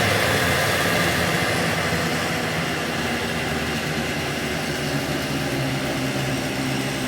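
A motor vehicle's engine running steadily with road or wind noise, gradually getting quieter.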